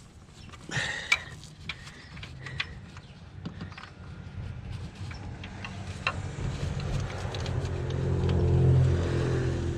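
A few metal tool clinks, then a vehicle engine hum that grows louder over several seconds, peaking near the end.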